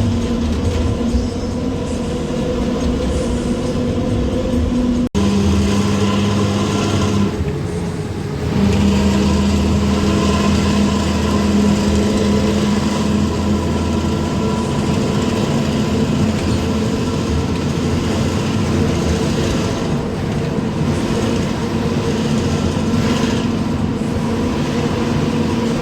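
Bus engine and its loud racing exhaust (knalpot), heard from the rear seats of the bus, giving the deep snoring 'ngorok' drone it is fitted for. It eases off briefly about eight seconds in, then pulls again louder and holds steady.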